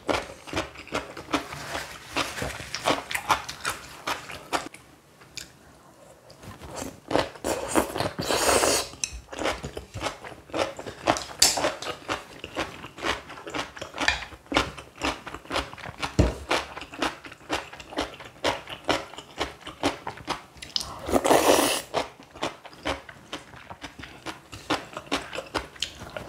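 Close-miked chewing and crunching of stuffed cucumber kimchi and ramyeon, many quick wet mouth clicks, with two longer rushing bursts about eight seconds in and again near twenty-one seconds.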